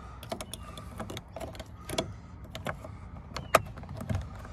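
Plastic clicks and taps as the chrome interior door-handle surround of a Fiat 500 is pressed and clipped into the door trim panel, with one louder click about three and a half seconds in.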